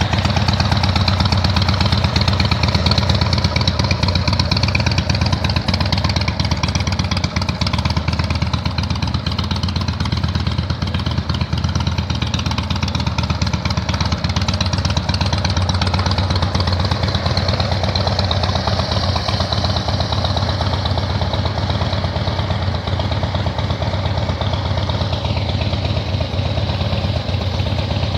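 2007 Harley-Davidson Street Bob's V-twin engine idling steadily.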